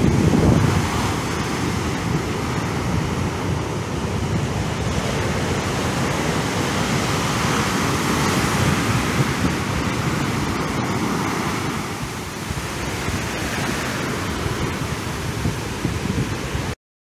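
Ocean surf: rough-sea waves breaking and washing up a sand beach in a steady rush of foam, loudest in the first second and cutting off suddenly near the end.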